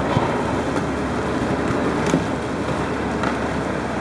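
Steady rushing noise of choppy water and wind on the microphone, with a few light splashes from kayak paddles.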